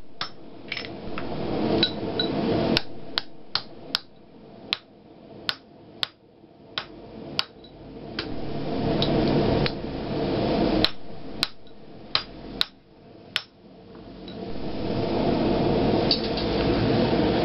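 Hand hammer striking the top die of a blacksmith's guillotine fuller tool to fuller hot steel bar: a run of about nine sharp metallic blows, a pause of about three seconds, then five more. A steady rushing noise swells and fades behind the blows.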